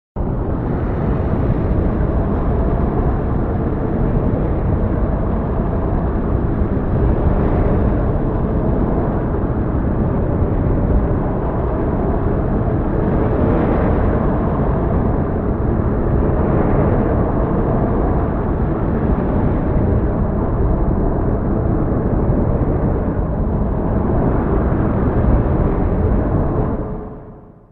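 Heavy storm: a dense, steady rushing noise weighted to the low end, with a few swells, starting abruptly and fading out near the end.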